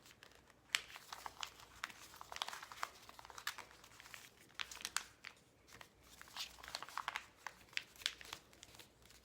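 A sheet of paper being folded and creased by hand: faint rustling and crinkling with many small, irregular crackles.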